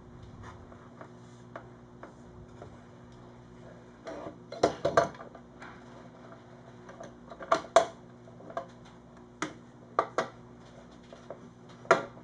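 Sharp clicks, knocks and metallic clinks as a metal clamp is fitted and tightened over a guitar's freshly hide-glued neck-to-body joint, in scattered clusters with the loudest near the middle and again near the end, over a faint steady hum.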